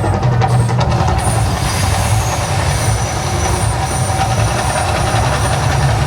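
The Mirage volcano show's steady, loud low rumble, with thin high whistling tones held above it.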